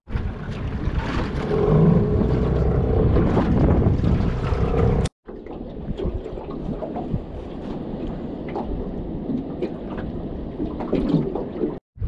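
Wind buffeting the microphone over lapping water, louder for the first five seconds, then quieter with scattered light clicks and knocks. The sound cuts out briefly twice.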